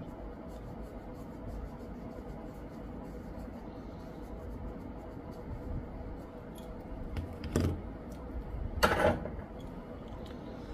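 Small handling noises of tools on an electronics workbench during soldering: a few light clicks and two short scrapes, the second, about nine seconds in, the loudest, over a steady faint hum.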